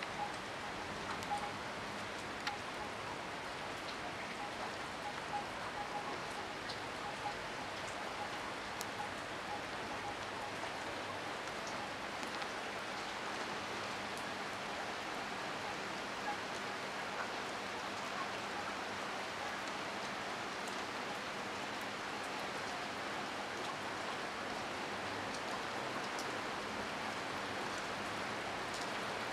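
Hard rain falling steadily, a dense even hiss, with scattered sharp drop clicks that are more frequent in the first half.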